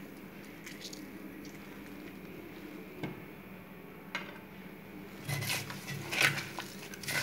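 A hand mixing raw chicken pieces with yogurt, chopped herbs and spices in a clay bowl, the wet rubbing and slapping starting about five seconds in. Before that only a faint low hum and a couple of light taps.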